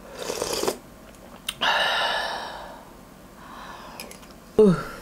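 A person slurping hot ramen broth from a spoon: a short slurp, then a longer breathy slurp or exhale that fades over about a second, and a brief falling vocal 'ah' near the end.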